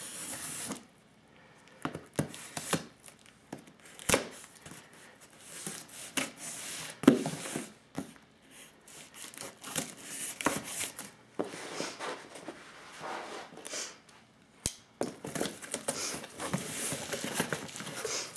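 Packing tape on a cardboard box being slit and torn with a folding knife: irregular scraping, ripping and crinkling with a few sharp knocks, then the cardboard flaps pulled open near the end.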